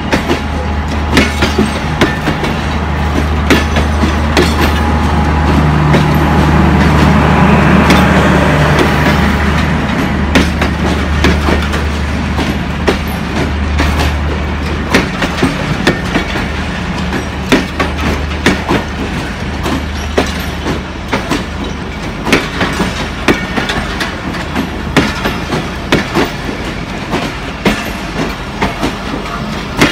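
Pakistan Railways passenger coaches rolling slowly past close by, wheels clicking over the rail joints in a steady clickety-clack over a low hum. The sound swells louder for a few seconds about six seconds in.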